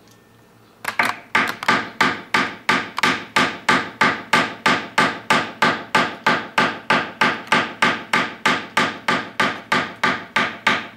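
Small hammer striking jewelry wire on a steel bench block: a steady run of even, sharp blows, about three a second, starting about a second in. This is cold-forging, flattening the wire.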